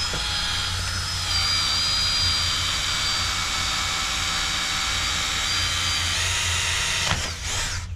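Electric drill running under load, boring a hole through PVC pipe: a steady high whine that stops near the end.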